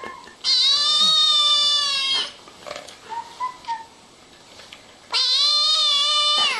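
Kitten meowing: two long, drawn-out cries, each nearly two seconds, with a faint short squeak between them.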